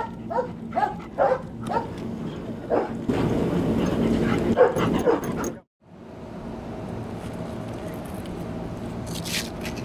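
German Shepherd military working dog giving short, high yips and whines in quick succession. These give way to a louder rush of noise that cuts off suddenly about five and a half seconds in, followed by a steady low hum.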